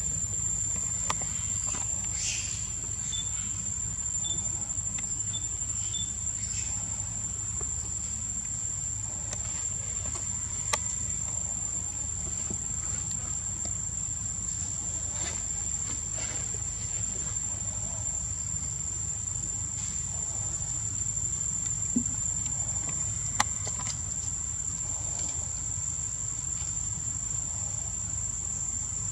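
Insects droning in one steady high-pitched tone, with a few faint clicks.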